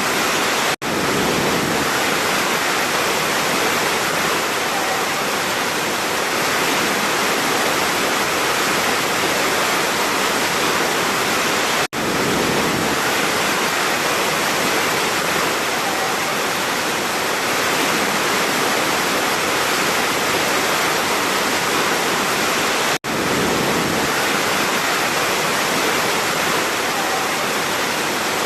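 Large waterfall rushing, a steady, dense roar of falling water. The sound cuts out for an instant three times, about every eleven seconds.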